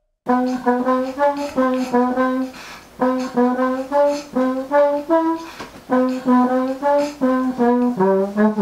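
Trombone playing a short, bouncy tune of detached notes, mostly repeating one pitch with brief steps higher, then dropping to a lower held note near the end.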